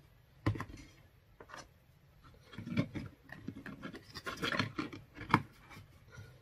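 Reused plastic Clorox Wipes canister being handled: rubbing and scraping of plastic and damp paper towel as the blue flip-top lid is worked onto the canister, with a few short clicks and a sharp click about five seconds in.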